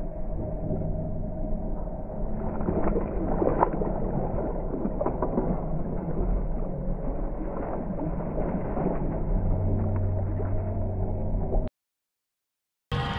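Muffled splashing and sloshing of a long-handled wire crab dip net being swept through the water beside the boat, over a steady low hum from the boat's motor. The sound cuts out to silence for about a second near the end.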